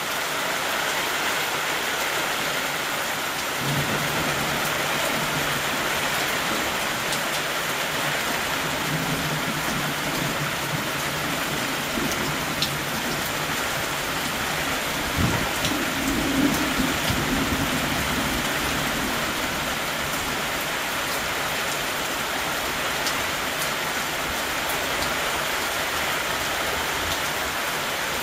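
Heavy rain falling steadily in a downpour. A low rumble joins it a few seconds in and fades out after about fifteen seconds.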